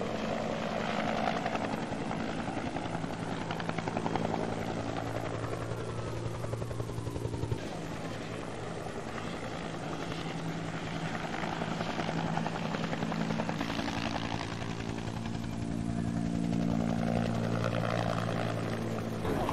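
Firefighting helicopter's rotor and turbine engine running steadily, a drone with fast, regular blade chop. The drone shifts abruptly about eight seconds in.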